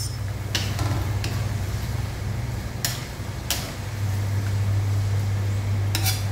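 A cooking utensil clinking and scraping against a nonstick wok as pork adobo is stirred, a few separate knocks with a quick cluster near the end. Under it runs a steady low hum that gets louder about two-thirds of the way through.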